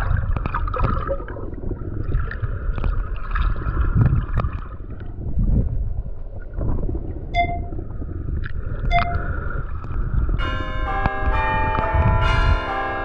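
Muffled, rumbling water noise as heard from a camera underwater, with scattered clicks and two short chimes. From about ten seconds in, a bell rings out with many overlapping tones.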